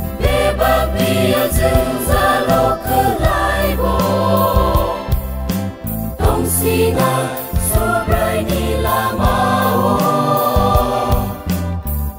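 Mixed choir of men's and women's voices singing a Kokborok gospel song in harmony with long held notes, backed by a band with drums and bass.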